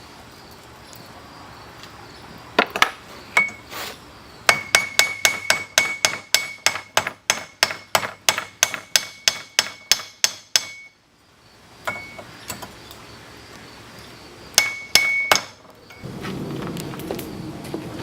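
Hammer strikes on hot steel over an anvil while forging. A few scattered blows come first, then a steady run of about three blows a second for some six seconds, each with a high ring. A few more strikes follow, and near the end a steady low rumble sets in.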